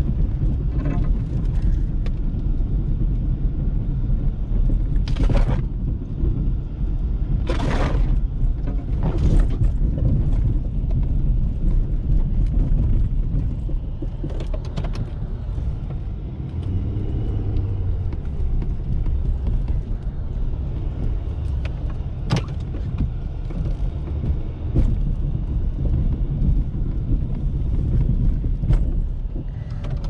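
Ford F-350's 6.7-litre Power Stroke V8 turbodiesel truck running with a steady low rumble. A few brief rushing noises come about five to nine seconds in, and a single sharp click comes near the three-quarter mark.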